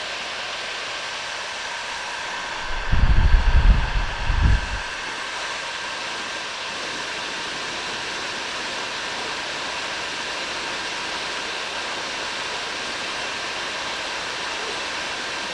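Bauer heat gun running steadily, a constant rush of blown air with a faint steady whine, aimed at a copper pipe joint to melt solder. About three seconds in, a low rumble lasts a couple of seconds.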